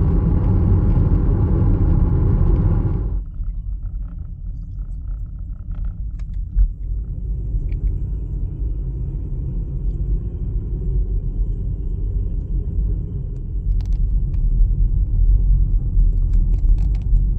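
Steady road and engine rumble heard from inside a moving car. Louder tyre and wind noise at highway speed drops suddenly about three seconds in to a lower, quieter rumble at slow town speed, with a single thump a few seconds later.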